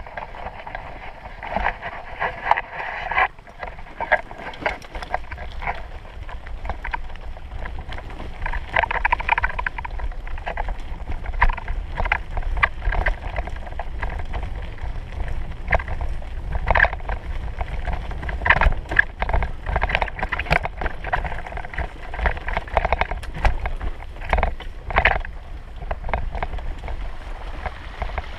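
Steady wind rumble on the microphone, with irregular crunching knocks scattered throughout.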